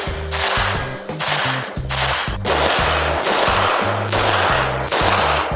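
AR-15 rifles firing in quick strings of shots, laid over background music with a stepping bass line.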